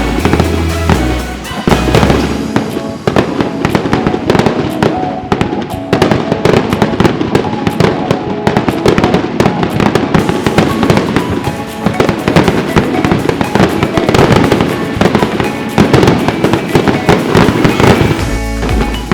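Fireworks display: a rapid, dense barrage of bangs and crackling bursts, with music playing alongside.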